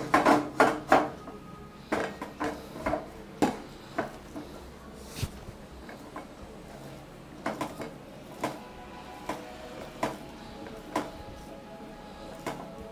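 Irregular metallic knocks and clanks as soft maida parotta dough is pressed and pushed by hand across an upside-down stainless-steel plate, about one or two a second.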